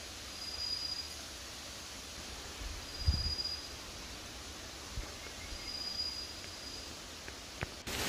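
Outdoor forest ambience: a steady hiss of wind in the trees, with low thumps of wind gusting on the microphone, the strongest about three seconds in. A thin, high, steady note sounds three times, each lasting about a second.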